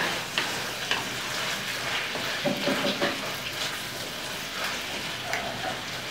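Marinated chicken pieces sizzling in a hammered wok while a wooden spoon stirs them, with scattered scrapes and knocks of the spoon against the pan. The chicken is being seared until it cooks through and changes colour.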